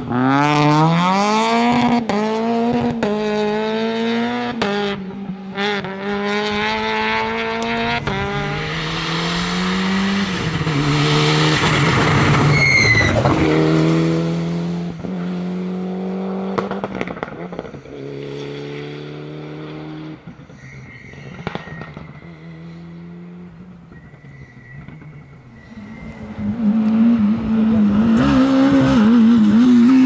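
Rally cars at full throttle on a gravel stage. First a Peugeot 206 rally car's engine revs hard through a series of quick upshifts. Then cars pass at speed, the loudest about halfway through with a falling pitch as it goes by, and near the end another engine climbs in revs.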